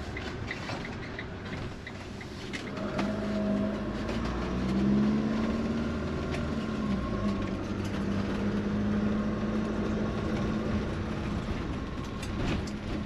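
Fiat Ducato-based motorhome on the move, heard from inside the cab. The diesel engine note rises as it accelerates a few seconds in, then holds steady over tyre noise from the wet road. A light regular ticking sounds in the first second.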